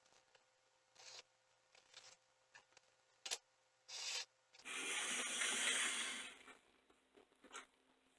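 Scattered short rubbing and scraping noises with a sharp click about three seconds in, then a louder scrape lasting about a second and a half: an HO scale model locomotive being handled and tried on its track after repair.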